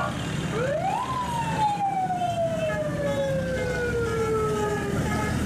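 A vehicle siren gives a single wail: it rises quickly about half a second in, then falls slowly for about four seconds and stops, over steady street traffic noise.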